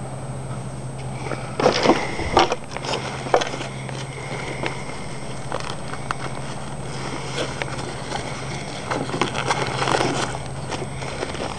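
Crackly rustling of a Dacor scuba buoyancy compensator vest's nylon fabric and pocket as it is handled. It comes in scratchy bursts about two seconds in and again near the end, over a steady low hum.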